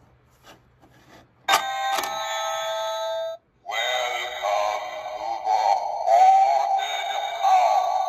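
Novelty vampire doorbell prop set off: a tinny electronic doorbell chime rings for about two seconds and cuts off abruptly. After a brief gap, a distorted, wavering vampire voice plays through its small speaker.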